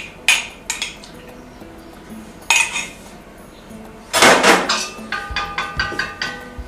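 A metal spoon clinking against a small glass jar a few times, then a louder clatter about four seconds in. After that comes a quick run of ringing clinks as a wire whisk knocks against a stainless steel mixing bowl.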